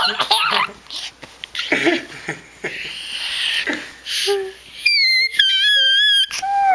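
Baby's breathy giggles and gasps, then a long high-pitched squeal from about five seconds in.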